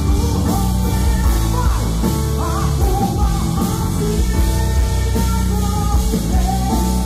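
Live gospel pop-rock: a male lead singer with a band including electric guitar, playing steadily and loud.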